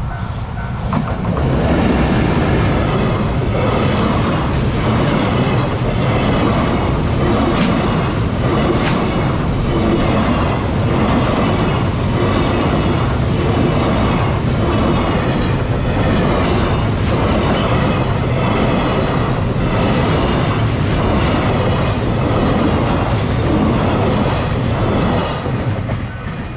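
EF210 electric locomotive and a long train of freight wagons passing close by: a loud, steady rumble of wheels on rail with a continuous run of wheel clacks over the rail joints. It swells about a second in and eases off near the end as the last wagons go by.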